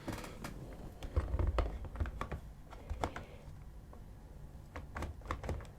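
Light, irregular clicks and taps of hard plastic model parts being handled and knocked together.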